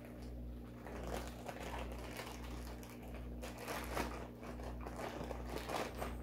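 Thin clear plastic bag crinkling in irregular rustles as it is handled with a coiled telephone cord, over a steady low hum.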